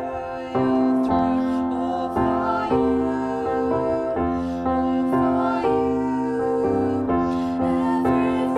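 Piano playing slow, sustained chords of a worship song, with women singing along.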